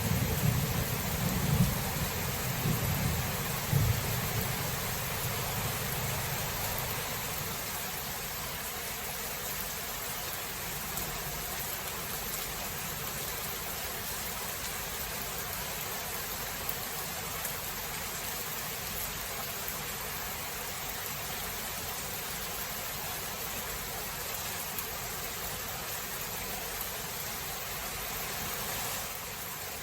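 Steady rain falling, with a roll of thunder rumbling and dying away over the first several seconds.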